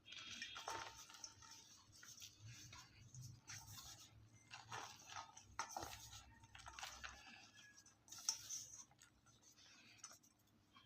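Block of sky blue gym chalk being crushed, giving a run of irregular crunching and crackling as it crumbles, with louder crunches near the start, around the middle and near the end.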